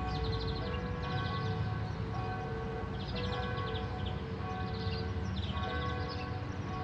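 Church bells ringing from a tower, several pitches sounding together and hanging on over a low rumble.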